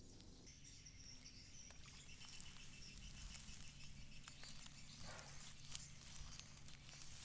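Near silence: faint outdoor ambience with scattered small ticks and a brief soft rustle about five seconds in.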